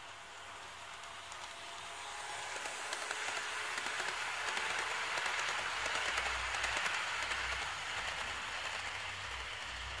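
HO-scale model freight train of tank cars rolling past on the track: a steady rushing of wheels with many fine clicks. It grows louder from about two seconds in, is loudest past the middle as the cars pass close, and eases a little near the end.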